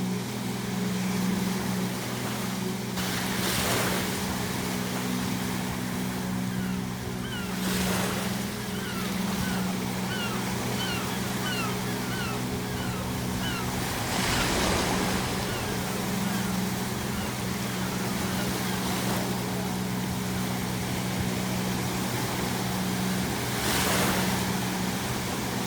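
Ocean waves breaking, four surges across the stretch, over a low steady hum. A run of short, quick gull calls comes in the middle.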